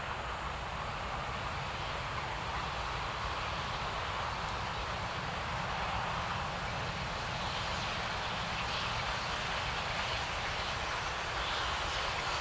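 Distant train approaching: a steady rumble that grows slowly louder.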